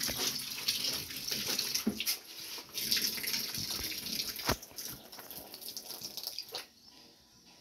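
Tap water running into a washtub while clothes are scrubbed and sloshed by hand in soapy water, with a few knocks, the loudest about four and a half seconds in. The water sound drops away shortly before the end.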